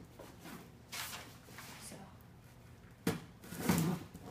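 Cardboard box being handled and opened: faint rustling and scraping, then a sharp knock about three seconds in.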